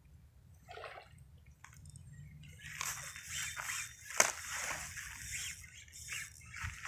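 Hooked peacock bass splashing at the water's surface while being fought on the line, with irregular splashes starting about three seconds in and one sharper splash near the middle.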